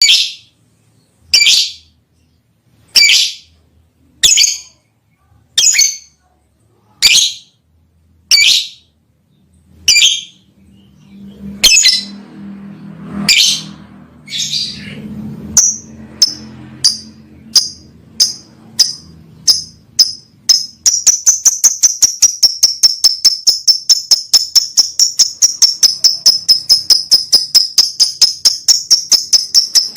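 Lovebird calling: loud, sharp, high chirps spaced evenly about a second and a half apart, coming quicker past the halfway mark and running into a fast, steady chatter of several short chirps a second for the last third.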